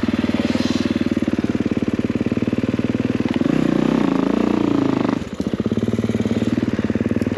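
Kawasaki motocross bike's engine running at low revs on a woods trail, with its firing pulses coming fast and even. About three and a half seconds in the revs rise and waver as the throttle is worked. Just after five seconds they drop briefly when the throttle is shut, then the engine picks back up to steady running.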